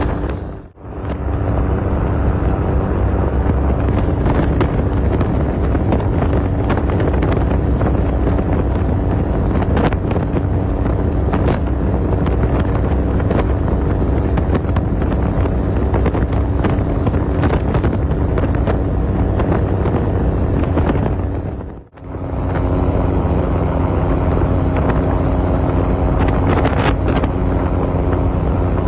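Helicopter in flight: a steady, loud drone of engine and rotor with a constant low hum. It drops away sharply for a moment about a second in and again about three quarters of the way through.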